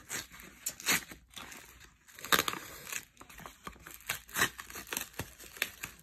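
Kraft paper mailer and its packing tape crinkling and crackling as they are peeled and torn open by hand, in irregular sharp crackles.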